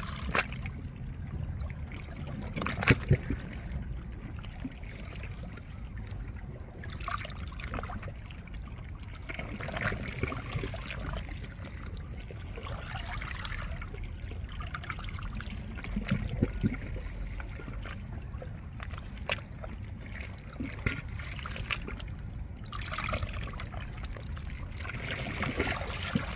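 Small waves washing in and out over shoreline rocks, water trickling and splashing between them in swells every few seconds, with a few sharp clicks, the loudest about three seconds in.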